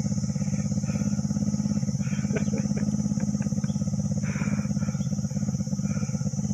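Small single-cylinder underbone motorcycle engine running steadily at low revs, with an even, rapid beat.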